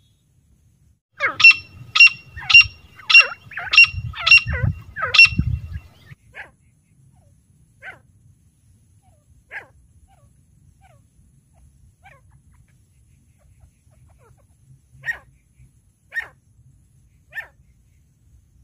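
Caged female grey francolin (teetar) calling: a quick run of about seven loud, sharp, ringing calls, roughly two a second, over a low rumble. Then fainter single calls a second or more apart, three of them near the end.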